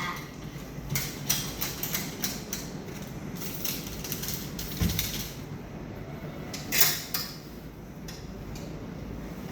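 Light clicks and knocks, a few a second, over the first five seconds. One louder short noise about seven seconds in.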